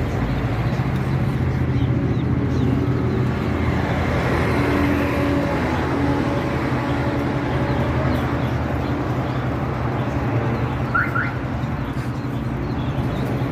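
Steady low motor hum, with two short rising chirps about eleven seconds in.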